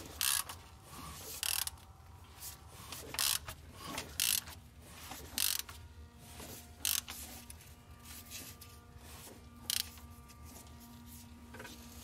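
Ratchet wrench clicking in uneven strokes as the crankshaft of a 2013 Range Rover Sport's 5.0-litre V8 is turned over by hand, checking that the engine spins freely and the timing is right after new timing chains have been fitted.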